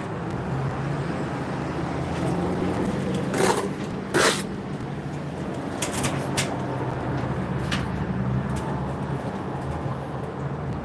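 A steady low motor hum, with two short scrapes about three and a half and four seconds in and a few sharp clicks a little later.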